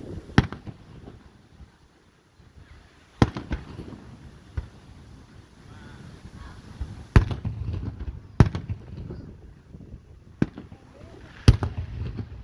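Aerial firework shells bursting overhead: five loud sharp bangs spaced a few seconds apart, each trailing off in a short low rumble, with a few softer pops between them.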